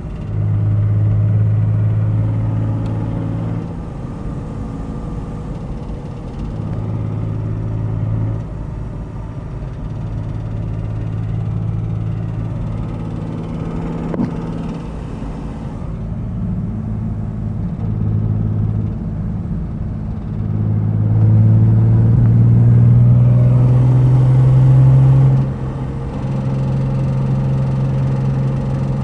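2005 Ford Mustang engine running and surging in repeated bursts of throttle, the pitch rising on the longest, loudest one near the end. The owner suspects an exhaust leak that is heard only on acceleration.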